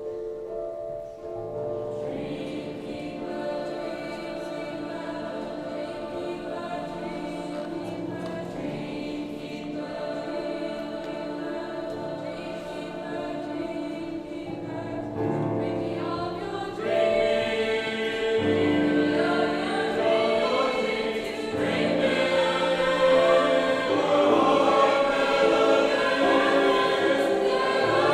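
A choir singing, growing louder and fuller about two-thirds of the way through.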